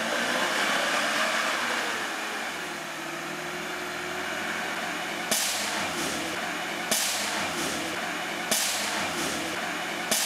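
Engine of a lifted four-wheel-drive pickup pulling slowly through deep mud ruts, its pitch rising and falling with the throttle. From about halfway, a sharp knock repeats four times, about every second and a half.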